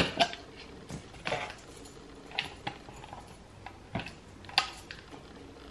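Plastic supplement tub being handled and its screw lid twisted off, giving a scatter of separate light plastic clicks and knocks.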